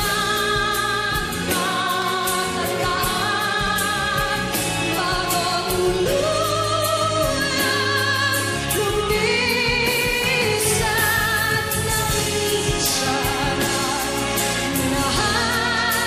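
Female singer performing live into a microphone, holding long notes with wide vibrato, over band accompaniment with a steady beat.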